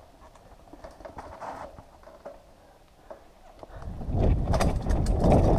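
Mountain bike rolling down a rough dirt singletrack: scattered light clicks and rattles at first, then a loud low rumble with dense rattling sets in about two-thirds of the way through as the bike speeds up over the rough ground.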